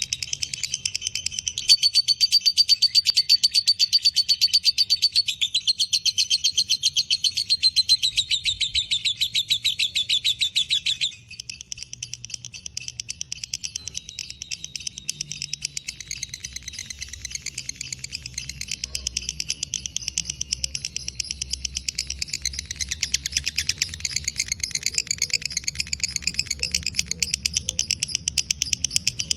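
Lovebird giving a long 'ngekek' chatter, an unbroken rapid train of shrill notes. About a third of the way in it drops suddenly to a lower level and carries on.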